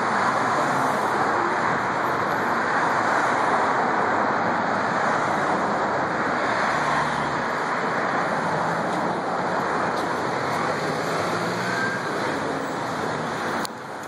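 Steady road traffic noise from cars on a busy city street, with a brief dip in level near the end.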